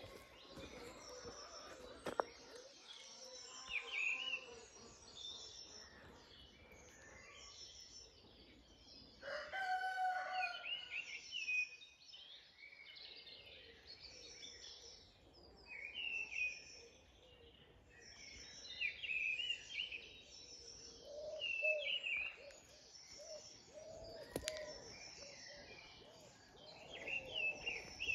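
Songbirds singing throughout in many short, high phrases, with a rooster crowing once about ten seconds in.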